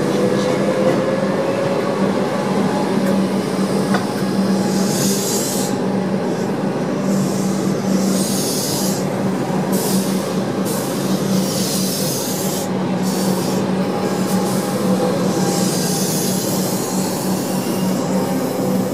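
Melbourne suburban electric train rolling slowly along the platform: a steady low hum under repeated rasping, scraping bursts from its wheels on the rails.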